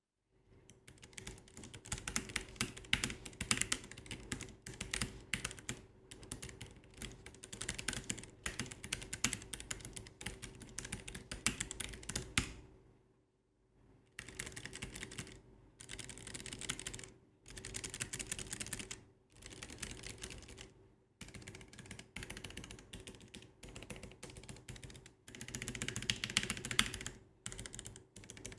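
Typing on a low-profile mechanical keyboard: a dense run of key clacks, a pause of about a second and a half near the middle, then shorter bursts of typing with brief gaps.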